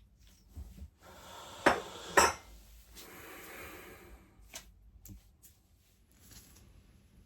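Metal parts being handled on a work surface: two sharp clinks about half a second apart with scraping around them, then a few lighter clicks.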